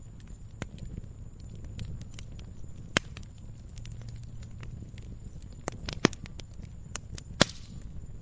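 Firewood burning: scattered crackles, with a few louder sharp pops about 3, 6 and 7.5 seconds in, over a steady low rumble of the fire.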